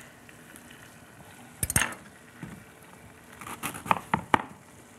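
Kitchen knife cutting through the hard core of raw red cabbage wedges and knocking on a plastic cutting board: one crisp cut about a second and a half in, then a quick run of four or five sharp cuts near the end.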